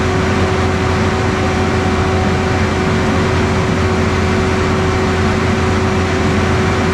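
Concrete boom pump truck's engine running steadily with a constant hum, driving the hydraulics as the stabilizer legs are raised and folded in.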